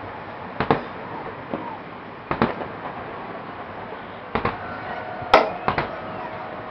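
Aerial firework shells bursting: about half a dozen sharp booms at uneven intervals, the loudest about two-thirds of the way through, with two more following close behind it.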